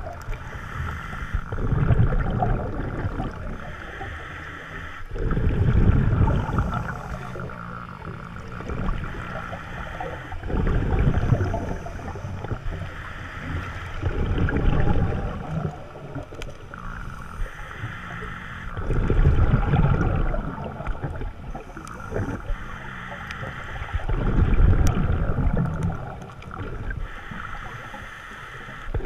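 Scuba diver breathing through a regulator underwater: a burst of bubbling exhaust about every four to five seconds, with a fainter hiss between them.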